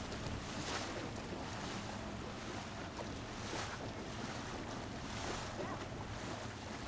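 A boat's motor running steadily as the boat moves under way, with water rushing past and wind gusting on the microphone.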